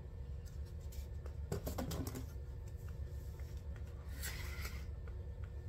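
Light clicks and taps of a plastic-and-cardboard blister pack being handled and set down, with a short crinkling rustle about four seconds in, over a low steady hum.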